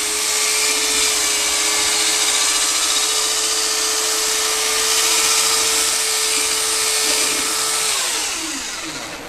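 Electric drill-driven paddle mixer stirring a bucket of thick coating paste, its motor running at a steady speed, then winding down with a falling pitch near the end as the trigger is released.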